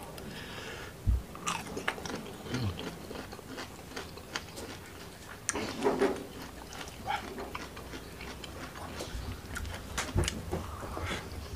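Close-miked eating with the hands: a person chewing boiled bamboo shoot, fried gourami and rice with chili sambal, with many short wet mouth clicks and a few soft low thumps.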